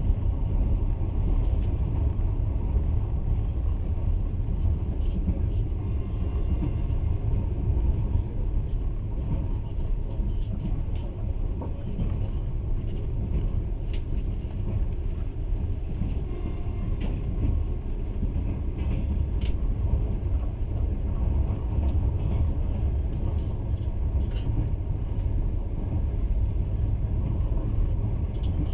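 Steady low rumble of a moving passenger train heard from inside the carriage: wheels running on the rails, with a few faint clicks.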